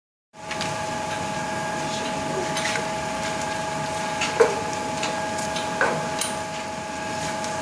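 Shrink packaging machine running with a steady hum made of a few fixed tones. Plastic shrink film crinkles as it is handled, with short sharp crackles and a louder snap about four and a half seconds in.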